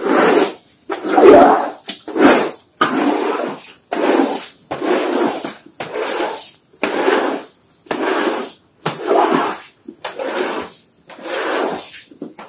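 Floor squeegee pushed in repeated strokes across a wet, rough concrete floor, sweeping the rinse water along. There is about one swishing stroke a second.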